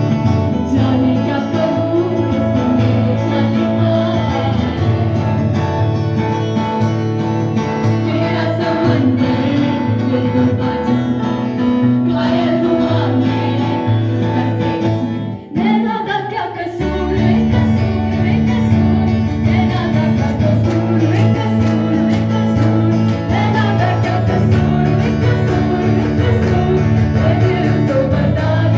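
Live amplified band: girls singing into microphones over an electric guitar and a Yamaha keyboard. The music drops out briefly about halfway through, then resumes with a steady bass line.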